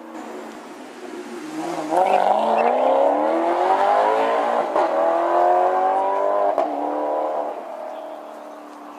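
Sports car engine revving hard under acceleration, rising in pitch through two quick upshifts, then fading as the car pulls away.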